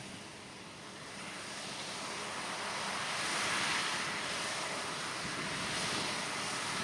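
Farm harvest machinery running, heard as a rushing noise that grows louder over the first few seconds and then holds steady, with wind on the microphone.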